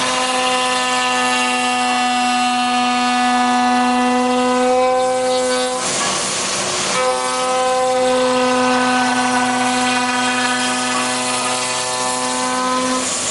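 A CNC router's 9 kW HSD spindle running with a steady high whine. About six seconds in, the whine gives way to roughly a second of loud hissing, then returns.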